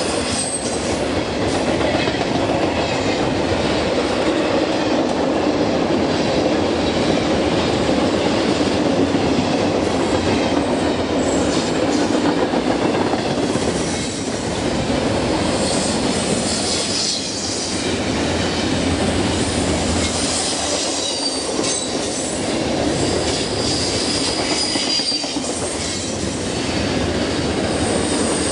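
A train rolling past, steel wheels running steadily on the rails with clickety-clack over the rail joints, and high-pitched wheel squeal rising briefly near the end.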